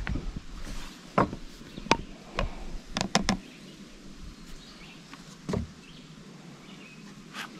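Light knocks and clicks of an AeroPress and ceramic espresso mugs being handled and set down on a wooden deck railing, with a quick cluster of three about three seconds in.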